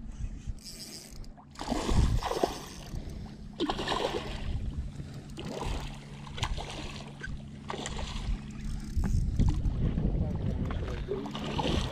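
A boat motor hums steadily and cuts out about nine seconds in, with several short bursts of noise over it.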